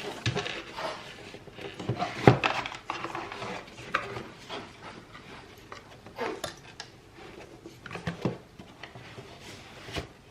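Cardboard microphone box and its padded packaging being handled and opened: scattered taps, knocks and rubbing, with one sharp knock about two seconds in.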